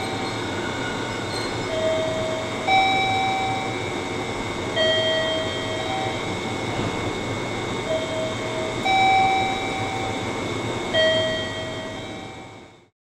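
A JR Kyushu 103 series 1500 electric train pulling out of a station platform and running away, a steady rumble. Over it a two-note electronic station chime, low then high, repeats about every three seconds. The sound fades out near the end.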